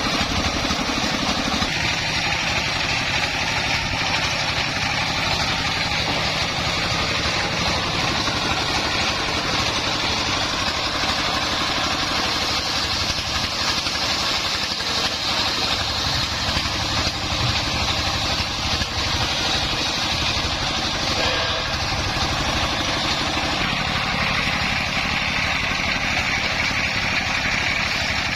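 Engine-powered homemade circular saw rig running steadily, a continuous mechanical drone at an even level.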